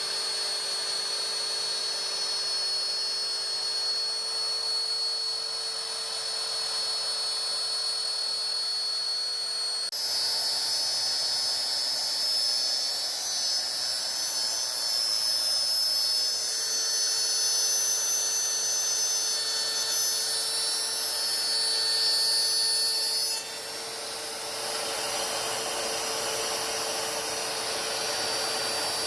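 CNC router spindle running with a steady high whine while cutting frames, over a rough cutting noise. The sound changes abruptly about ten seconds in and again in the last third, where it briefly drops quieter.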